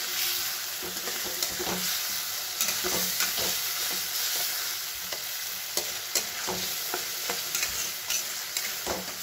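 Potato wedges and ground onion-ginger-chili paste frying in oil in a metal karahi, sizzling steadily, while a metal spatula stirs and scrapes against the pan with frequent irregular clicks.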